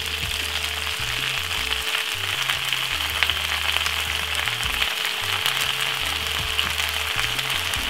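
Fresh spinach and diced spring onion sizzling in hot oil in a frying pan: a steady hiss with scattered crackles.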